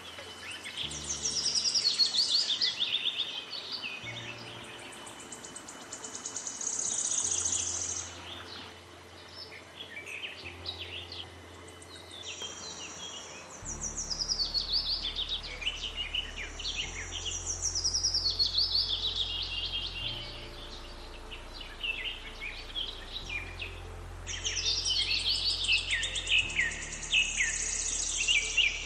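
Birds singing in repeated bouts of fast, high, descending trills and chirps, loudest about two seconds in, around seven seconds, mid-way and near the end. Under them runs background music of slow, sustained low notes.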